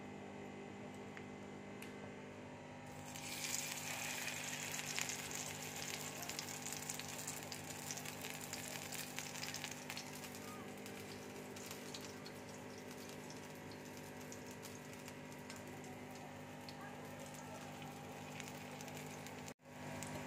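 Potato and paneer tikki patties sizzling in hot oil in a frying pan. The sizzle starts suddenly about three seconds in and slowly softens. A steady low hum runs underneath.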